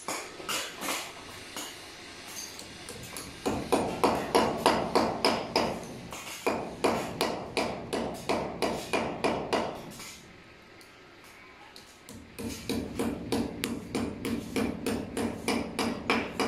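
Hand hammer striking a concrete door jamb in quick, repeated blows, about three to four a second, with a short pause partway through.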